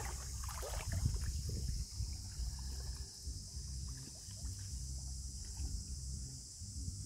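Water splashing and sloshing as a monkey swims to the bank and scrambles out through floating water plants, busiest in the first two seconds, over a steady low rumble.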